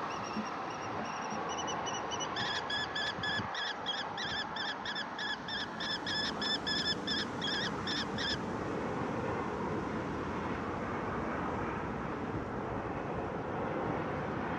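Kestrel calling a fast series of shrill 'kee' notes, about three or four a second, for some six seconds starting about two seconds in, over steady wind noise.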